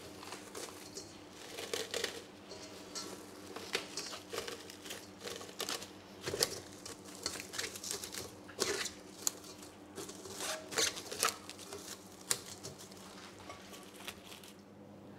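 Plastic wrap crinkling and rustling in irregular bursts, with small sharp clicks, as it is handled over a bowl of dough.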